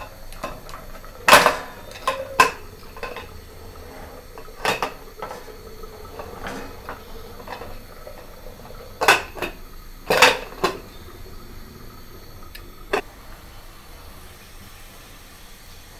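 Metal cooking-pot lid clanking against the pot as it is fitted and pressed shut: a series of separate knocks spread over several seconds, some ringing briefly.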